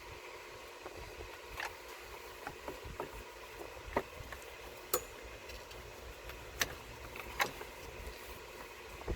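Scattered sharp clicks and knocks, about six, of engine parts and fittings being handled and worked loose by hand, over a steady faint hum.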